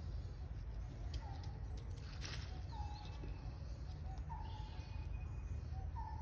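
Short, flat whistled animal calls, one about every second and a half, four in all, over a steady low rumble. There is a brief rustle a little past two seconds in.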